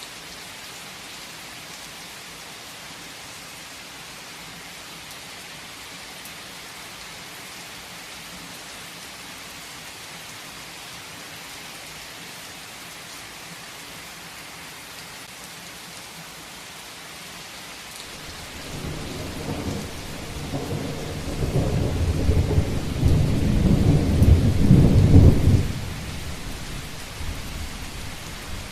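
Steady heavy rain falling, with a long roll of thunder that builds about two-thirds of the way in, peaks loudly for a few seconds and then rumbles away.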